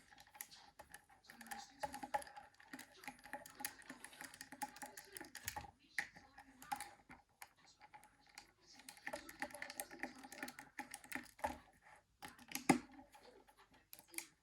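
Small irregular clicks and taps of a screwdriver and the plastic housing of a Nokia 9300i phone being handled while its screws are taken out, with a sharper click near the end.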